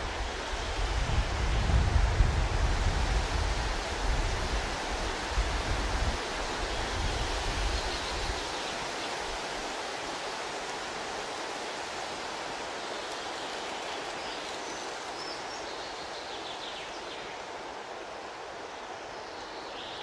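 Steady rushing of water, an even hiss, with a low rumble through roughly the first eight seconds that then drops away, leaving the hiss alone.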